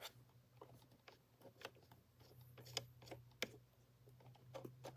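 Faint, irregular clicks and taps of an alarm clock radio's switches and buttons being handled, over a low steady hum.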